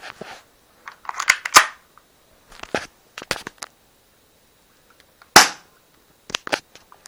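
Spring-powered HA-117 airsoft pistol being handled and cocked, giving scattered plastic clicks and rattles, then one sharp shot about five seconds in, followed by a couple of quieter clicks.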